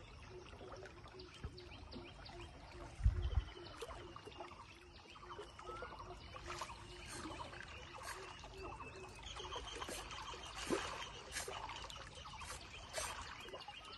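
Riverside ambience from a wooden boat: water lapping, birds calling, and scattered clicks and knocks, with a hard low thump about three seconds in.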